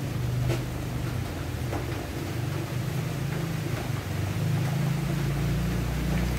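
A steady low hum, with a few faint soft ticks as pieces of sliced eggplant are laid into a pot of boiling broth.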